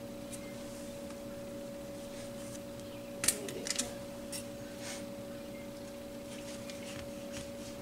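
A steady low hum, with a few brief scrapes and taps about three to five seconds in as a round plastic cutter is pressed and twisted through thin rolled dough on a foil-lined surface.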